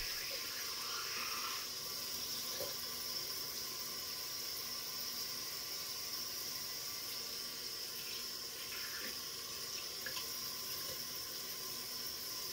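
Bathroom sink faucet running steadily into the basin while hair dye is rinsed out under it by hand.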